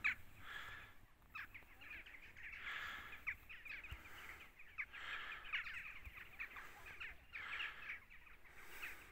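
A flock of birds calling, faint: many short, harsh calls overlapping in a continuous chatter.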